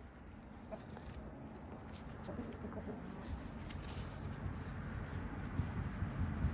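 Chickens clucking faintly, a few short calls in the first half, over low rumbling handling noise that grows louder toward the end.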